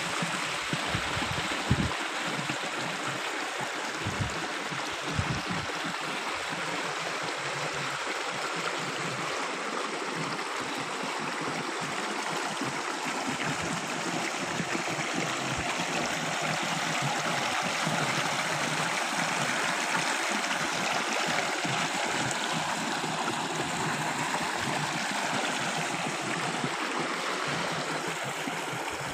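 Steady rush of water running in a small irrigation channel fed by a tubewell pump, getting a little louder midway.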